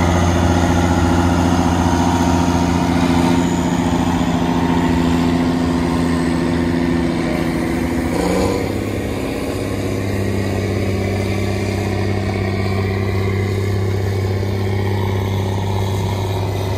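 CASE 4890 tractor's diesel engine running steadily under load while pulling an eight-bottom moldboard plow, a low steady drone whose note shifts slightly about halfway through.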